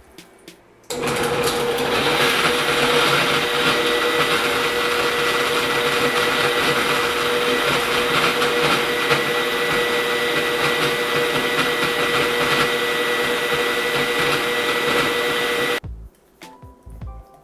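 Countertop blender with a glass jar running at a steady speed, blending leafy greens, fruit and water into a smoothie: a loud, even motor whine that starts abruptly about a second in and cuts off near the end.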